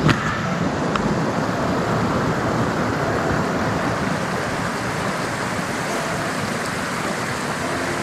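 Small mountain stream rushing steadily over rocks close by, an even hiss of flowing water. A couple of sharp clicks in the first second.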